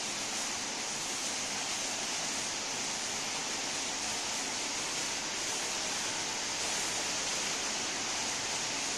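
Stage cold-spark waterfall machine running, giving a steady, even hiss, strongest in the high register, as it pours a curtain of sparks.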